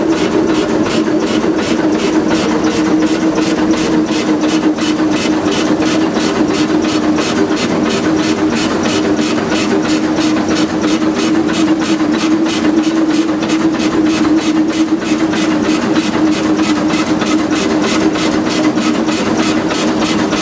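Shay geared steam locomotive working under steam, heard from inside the cab: a rapid, even exhaust beat over a steady hum.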